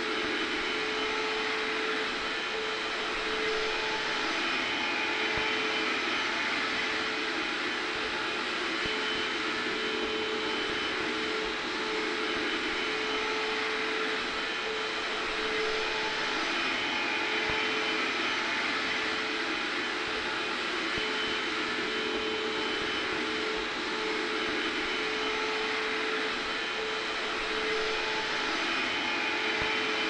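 Hair dryer blowing steadily, mixed with a vacuum cleaner running in the background: an even rush of air with a constant motor hum through it.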